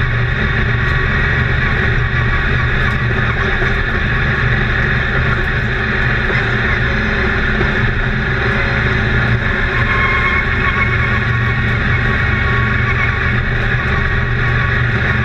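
Race car engine running at racing speed, heard from inside the cockpit: a loud, steady drone that holds without a break.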